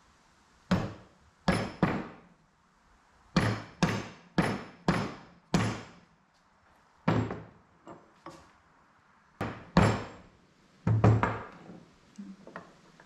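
A mallet tapping a greased spring cup down onto the end of a Hotchkis leaf spring: about a dozen sharp knocks in irregular groups, each with a short ringing tail.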